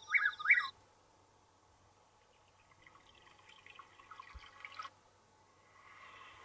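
Vivo Y33s alarm tones playing from the phone's speaker: a short loud run of rising chirps right at the start, then after a pause a faint run of quick plinking notes, and near the end a soft new tone begins.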